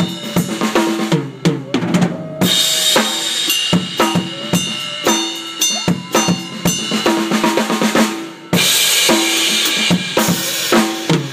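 Acoustic drum kit played hard in a busy freestyle groove: kick, snare and tom hits throughout, with ringing cymbal crashes that swell twice, a couple of seconds in and again after about eight seconds.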